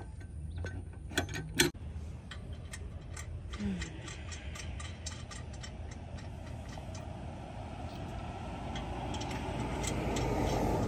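Light metallic clicking and ticking from a roadside tyre change: a scissor jack being cranked, then lug nuts being turned by hand onto the studs of a space-saver spare wheel. Two sharper clicks come about one and a half seconds in, and a rushing noise grows louder through the second half.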